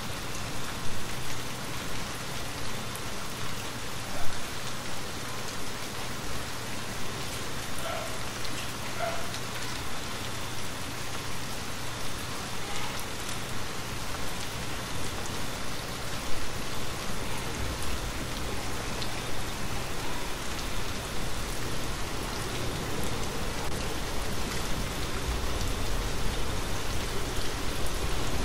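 Steady rain falling, with a few sharp drip-like ticks about a second and four seconds in. A low rumble builds toward the end.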